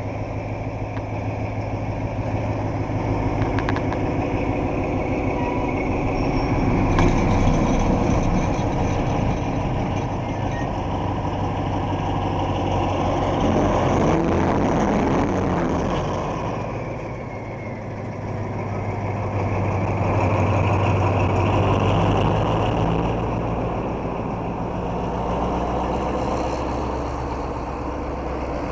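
Diesel locomotive engine running with a steady low hum, under a rumbling noise that grows and fades a few times.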